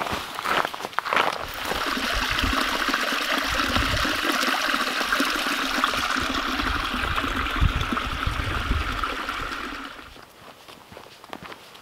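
A small rocky creek trickling and splashing, a steady rush of running water that comes in about a second and a half in and drops away near the end. Footsteps on a dirt trail at the start and again near the end.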